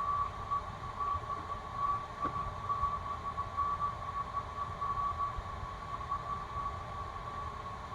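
Room tone: a steady high-pitched whine over a low background hiss and rumble, with no speech.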